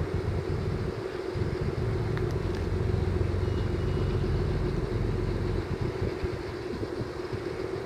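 Training ship's engines running slow as it comes into harbour: a steady hum over an uneven low rumble.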